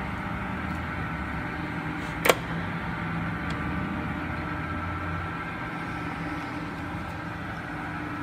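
1997 Kingston HD-22160 gear-head engine lathe running, with its geared headstock and feed drive turning: a steady mechanical hum. A single sharp click about two seconds in.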